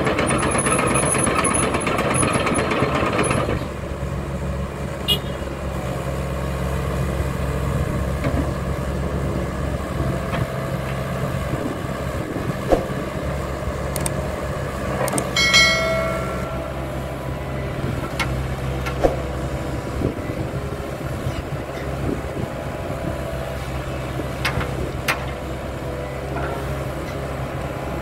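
Hitachi Zaxis ZX75US excavator's diesel engine running steadily, louder for the first few seconds and then dropping to a lower, even level about three and a half seconds in. Scattered light clicks and knocks, and a short high-pitched tone about halfway through.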